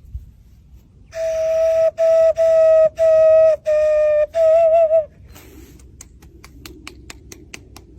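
A flute-like whistle sounds six short notes at one pitch, the last one wavering. A run of sharp clicks follows.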